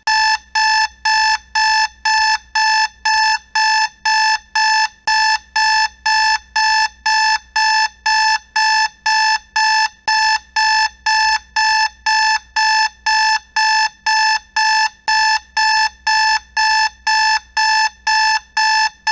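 Electronic alarm clock beeping: a loud, high-pitched beep repeated evenly about twice a second.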